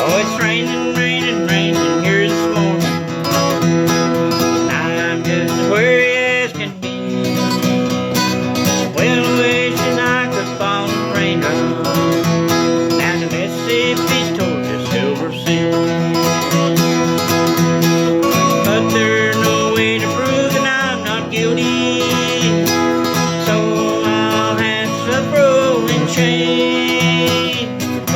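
Country-style music led by acoustic guitar, with a higher melody line of sliding, wavering notes played over it.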